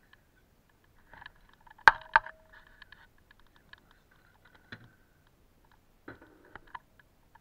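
Plastic clicks and knocks from a refrigerator drawer being opened and handled: two sharp clacks close together about two seconds in, then lighter knocks and rattling.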